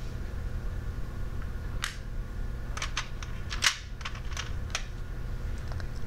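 Small cut-out letters being picked up and set down on wooden sandpaper letter boards: a string of light clicks and taps starting about two seconds in, the sharpest one about midway, over a steady low background hum.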